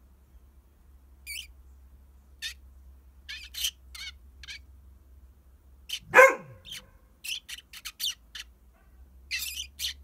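Eurasian tree sparrow giving a scattered series of short, high chirps, and a dog barking once, loudly, about six seconds in, the bark falling in pitch.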